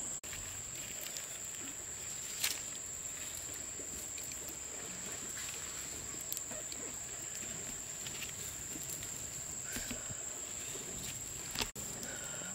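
Steady high-pitched insect trilling over a soft outdoor hiss, with a sharp click about two and a half seconds in. The sound cuts out for an instant twice, near the start and near the end.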